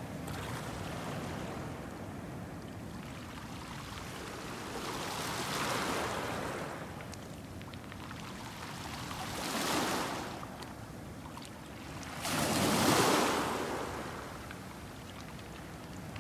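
Small sea waves washing in on a pebble shore: a steady hiss that swells three times, about six, ten and thirteen seconds in, the last surge the loudest.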